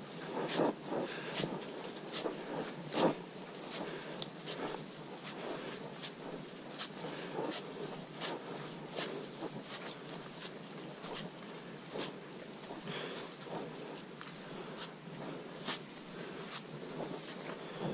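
Footsteps of hikers walking on a muddy, leaf-covered forest trail: irregular soft crunches and scuffs, roughly one or two a second, over a steady faint hiss.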